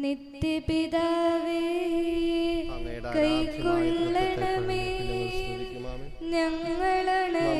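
Malayalam offertory hymn sung slowly, its words held over long, sustained notes. A lower part joins about three seconds in.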